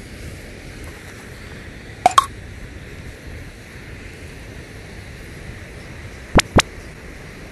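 Two light clinks close together about two seconds in, with a brief ring, then two quick sharp clicks near the end, over a steady rushing background noise.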